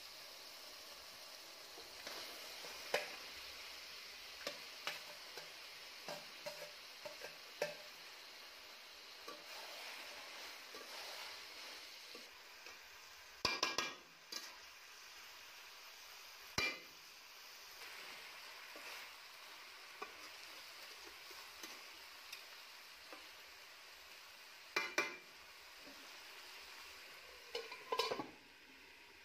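Chicken pieces frying in hot oil and masala in a steel kadai, sizzling steadily, while a spatula scrapes and knocks against the pan as it is stirred. Near the end a steel lid is set on the pan with a few clanks.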